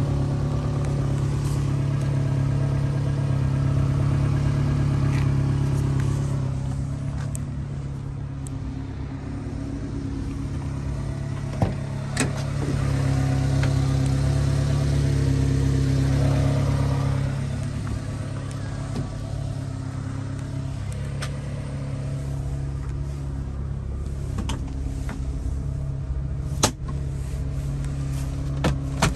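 Subaru Sambar kei truck's small engine idling steadily, growing louder and softer, with a few sharp clicks.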